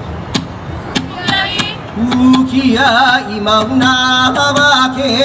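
Hawaiian chant for a hula: a steady percussion beat, about one stroke every 0.6 seconds, and about two seconds in a chanter's voice joins it, singing long wavering held notes over the beat.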